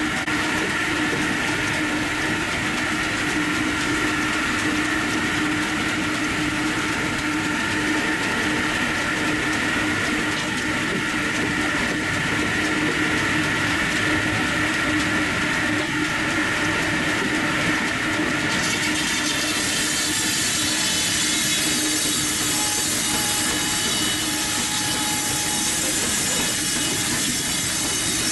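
Large belt-driven circular sawmill blade spinning and ripping through a log, a steady whining hum with a dense rasp of cutting. The sound turns brighter and hissier about two-thirds of the way through.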